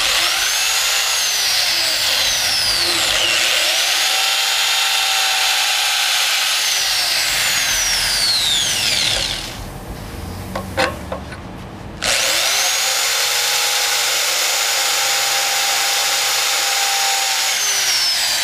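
Handheld electric drill boring holes through a wine barrel's metal bands into the wooden staves. The motor whines up to speed and its pitch dips and rises as it is worked. It stops about nine seconds in, with a few clicks, and starts again about twelve seconds in.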